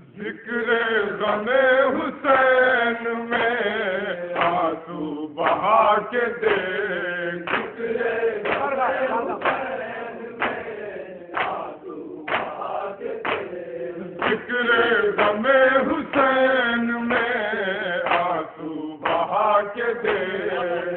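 Male voice chanting a nauha, a Shia mourning elegy for the martyrs of Karbala, in long melodic phrases that rise and fall without pause.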